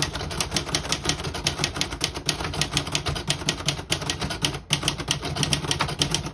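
1975 Olivetti Lettera 25 manual portable typewriter being typed on in a quick, steady run of key strikes, about eight to ten clacks a second, with a short pause about two-thirds of the way through. The keys strike cleanly, none sticking.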